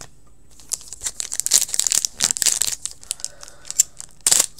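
Foil wrapper of an SP Authentic hockey card pack being torn open and crinkled by hand: a quick run of crackles after a short pause, with a sharp rip near the end.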